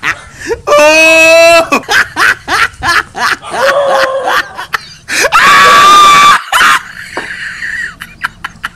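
Added comedy sound effects of a human voice: a long high cry about a second in, quick bursts of giggling laughter after it, and a loud scream from about five to six and a half seconds.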